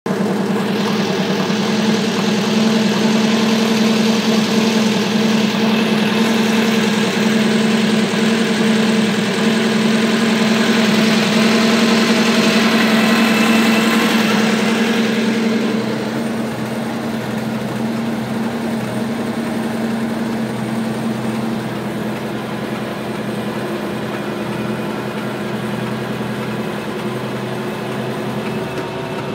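Schweizer 300CBi helicopter's four-cylinder Lycoming piston engine running at warm-up, with the clutch engaging and the main rotor beginning to turn. The sound drops in level about halfway through, and afterwards its pitch rises slowly.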